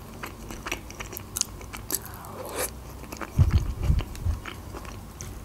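Close-miked chewing of a soft, juicy minced-meat patty with mashed potato: scattered wet mouth clicks, and a few low thumps about three and a half seconds in.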